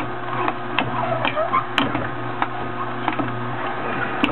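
Horizontal masticating juicer running: its electric motor hums steadily while the auger crushes produce pushed down the feed chute with the plunger, with irregular clicks and crackles.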